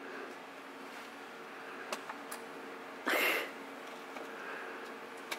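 Handling noise from unfastening an infant car seat base in a car's back seat: a few sharp clicks and one short rustling scrape about three seconds in, over a steady low hum.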